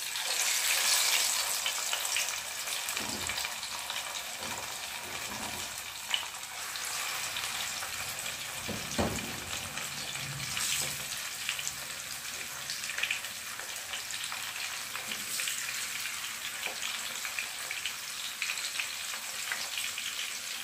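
Masala-marinated chicken pieces frying in hot oil in a pan: a steady sizzle, loudest in the first couple of seconds as a fresh piece goes into the oil, with occasional small pops.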